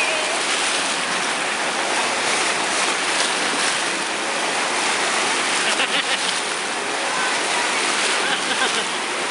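Wave pool's machine-made waves as a steady, loud rush of surging water, with people's shouts faintly heard over it a few times.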